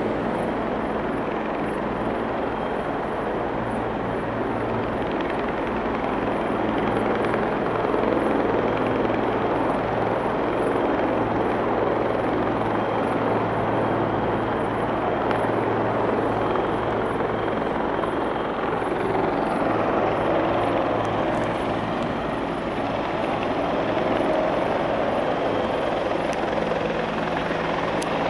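Firefighting helicopter running steadily, a continuous rotor and turbine drone with a low hum underneath.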